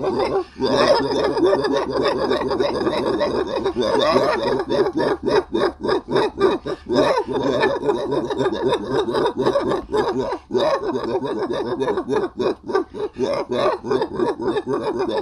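Several voices laughing and shrieking over one another in a continuous jumble, without clear words.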